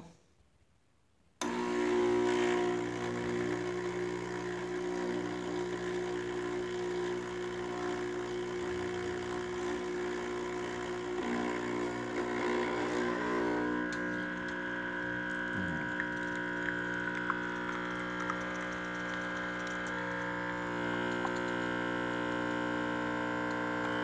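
A Belmoca capsule espresso machine's pump starts suddenly about a second and a half in and runs with a steady hum as it brews a double espresso. A higher tone joins about halfway through. The machine is dispensing again after its loose heater connection was refitted.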